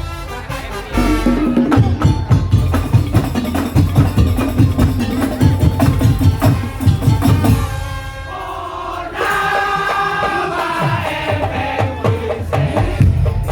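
Madurese tong-tong ensemble playing live: wooden slit drums and drums beat a fast, dense rhythm. About nine seconds in, the drums thin out and a melody comes in over lighter percussion.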